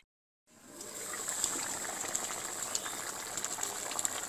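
Drumstick and potato curry boiling in an iron wok over a wood fire: steady bubbling with many small pops. It fades in after a brief silent gap at the start.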